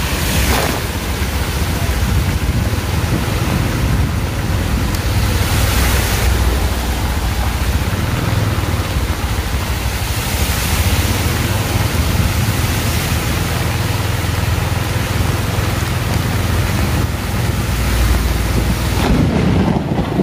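Heavy rain in strong wind: a steady rushing hiss over a deep rumble of wind buffeting the microphone, swelling several times in gusts.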